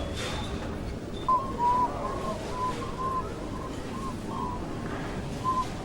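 A bird calling: a string of short, clear notes at one pitch, repeated about twice a second with uneven gaps, starting about a second in, over steady background noise.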